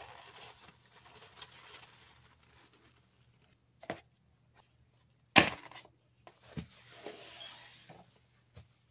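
Handling sounds on a wooden tabletop: a paper towel rustling and crumpling under gloved hands, then a few knocks against the wood, one much louder and sharper than the rest about halfway through. Paper rustles again near the end.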